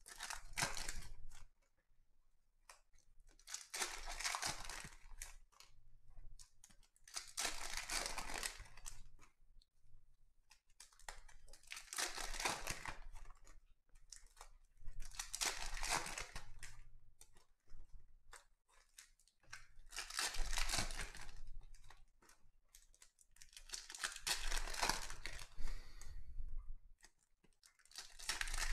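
Foil wrappers of Panini Donruss Optic football card packs being ripped open and crinkled, one pack after another, a burst of tearing about every four seconds.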